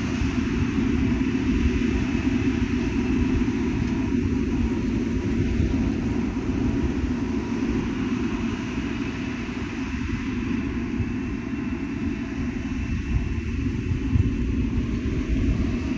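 XCMG motor grader's diesel engine running steadily, a deep rumble with a faint steady whine above it.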